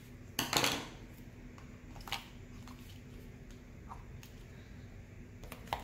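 Small clear plastic bead containers and a bag of diamond-painting drills being handled: a short rustle about half a second in, then scattered light plastic clicks and taps. A faint steady hum from a room air conditioner runs underneath.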